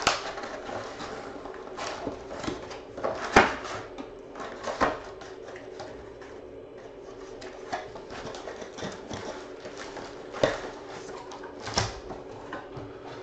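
A cardboard trading-card hobby box being opened by hand and its foil-wrapped packs pulled out onto a table: rustling and scraping of cardboard and foil, with a few sharp knocks, the loudest about three and a half seconds in.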